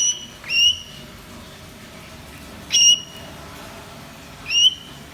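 Young African grey parrot giving four short whistled calls, each sliding up into a held high note; the first two come close together, the others about two seconds apart.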